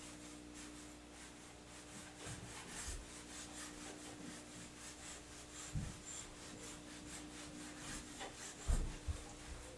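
A metal grooming rake pulled again and again through a Pekingese's long coat, a quick series of soft scratchy brushing strokes as loose undercoat is raked out. A few soft low bumps come about six seconds in and near the end.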